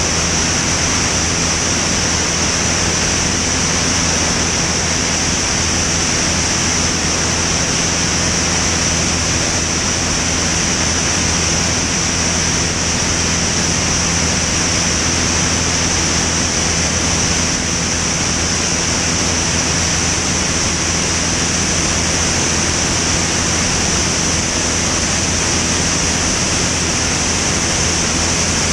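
Van's RV-10 light aircraft in flight: the steady drone of its piston engine and propeller, with a constant rush of airflow over it. The hum and the hiss stay even and unchanging.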